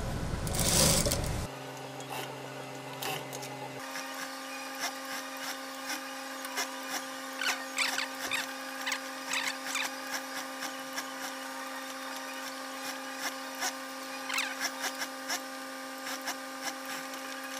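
Industrial sewing machine stitching, cutting off sharply about a second and a half in. Then a steady hum with scattered light clicks and rustles of fabric and binding tape being handled under the presser foot.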